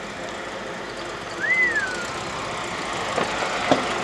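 An open-top MG sports car creeping along a gravel lane, its engine running at low revs, with tyres crunching over the gravel growing louder near the end as it comes close. About a second and a half in, a single short whistle glides up and then down.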